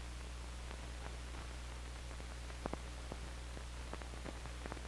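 Old film soundtrack noise: a steady low hum and hiss, with scattered faint clicks and pops from the worn print.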